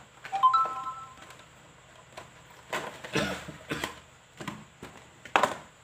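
Cardboard box and paper packaging being handled: a sharp knock with a brief squeaky tone about half a second in, then rustling and light knocks as the paper manual is pulled from the box.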